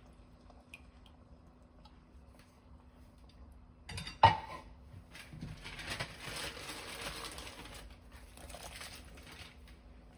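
Cooking sounds at a pot of ramen: one sharp knock of kitchenware about four seconds in, the loudest sound, then a few seconds of soft patter and rustle as beaten egg and chopped spring onion go into the broth.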